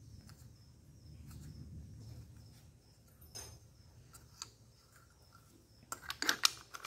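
Small metal fittings and hand tools being handled on a workbench: a few faint clicks over a low steady hum, then a quick run of sharp clicks and clinks about six seconds in as the parts are handled and a wrench is picked up.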